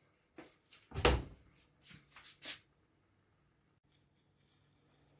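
A few short knocks and clatters of cookware being handled, the loudest about a second in, then quiet with a faint low hum.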